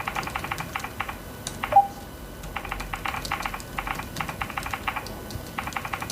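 Typing on the ONEXPLAYER's thin plastic keyboard: quick runs of small key clicks. There is a short break about two seconds in, marked by a brief high blip that is the loudest sound.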